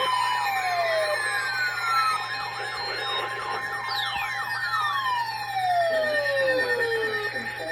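Electronic siren-like alert effect: several tones slide slowly down in pitch and overlap, over steady held tones and a fast repeating warble.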